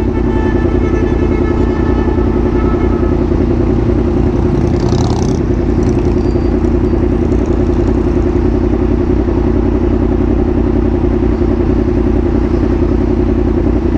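Yamaha R1M crossplane inline-four running loud and steady through an SC Project exhaust as the bike rides at an even throttle, with no big revs. A brief hiss comes about five seconds in.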